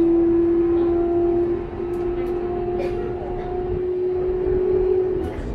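Toei 6300 series train's Mitsubishi GTO-VVVF inverter and traction motors whining as one steady tone that creeps slowly up in pitch and stops near the end, over the low rumble of the wheels on the rails, heard inside the car.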